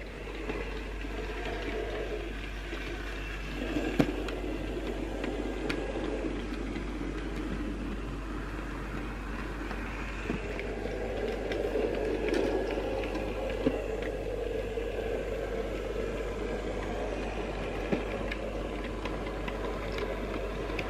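Small electric motor of a model Sentinel shunting locomotive whirring steadily as it runs along the track, pulling a short train of wagons, with the odd sharp click from the wheels on the rails.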